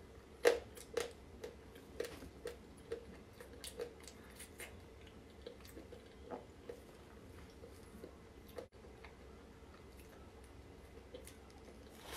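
Chewing of cake, heard as a series of sharp, wet mouth clicks and squishes, thick in the first five seconds and sparser after; the loudest comes about half a second in.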